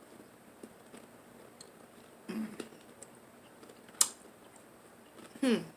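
Quiet mouth sounds of a person eating seafood: a short hummed "mm" about two seconds in, one sharp click about four seconds in, and another "mm" near the end.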